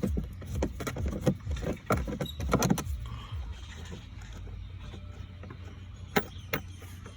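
A hand tool working a screw out of a plastic cover: a run of quick clicks and rattles for the first three seconds or so, then two single clicks just after six seconds, over a steady low hum.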